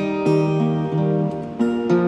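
Acoustic guitar music: plucked notes and chords picked at a steady pace, with no singing.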